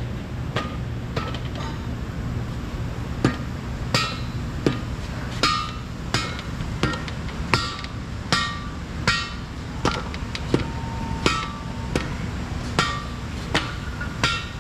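Heavy hammer blows driving a bearing race (cup) into the bore of a Caterpillar D10R final drive hub to seat it. The strikes come steadily about every 0.7 seconds, each a sharp knock with a short metallic ring.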